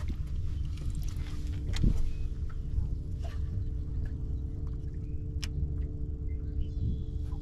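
Steady motor hum with two constant tones over a low rumble, as of a boat's electric trolling motor running, with a few faint ticks.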